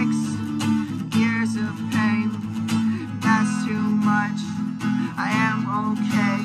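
Steel-string acoustic guitar with a capo, strummed in a steady rhythm, with a man singing over it.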